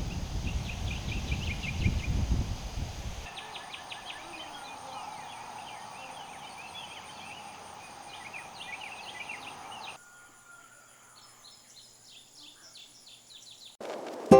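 Wild birds chirping, many short repeated calls, with wind rumbling on the microphone for the first three seconds. The sound cuts abruptly about three seconds in and again about ten seconds in to other stretches of bird calls, the last one quieter.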